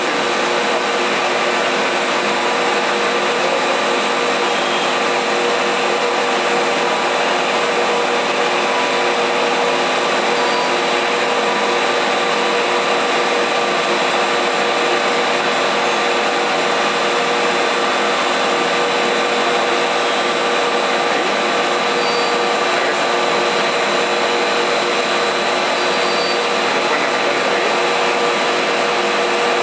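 Confectionery cooking-extruder line running: a steady machine whirr with several steady high whines over it, unchanging throughout.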